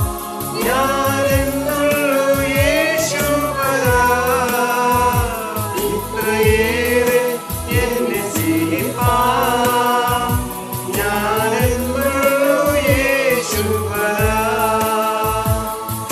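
A mixed choir of men and women singing a Malayalam Christian hymn, held notes gliding from phrase to phrase over an instrumental backing with a steady beat.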